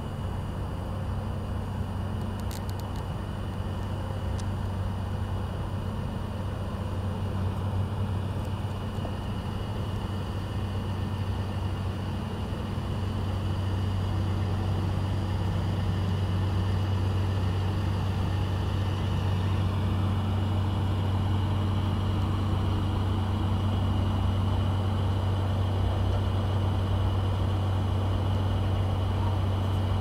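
Steady low hum of an idling diesel truck engine, growing a little louder about halfway through.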